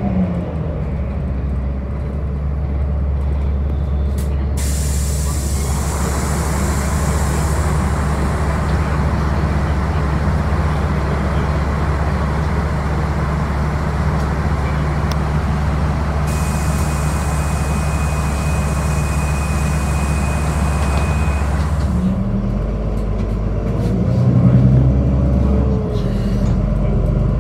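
City bus running, heard from inside: a steady low engine drone with a broad hiss that comes in about five seconds in and cuts off suddenly near the end. A thin steady high tone sounds for a few seconds before the hiss stops.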